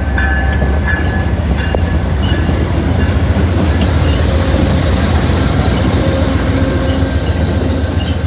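Amtrak passenger train running on the rails: a steady, loud rumble of wheels and cars, with a hiss above it.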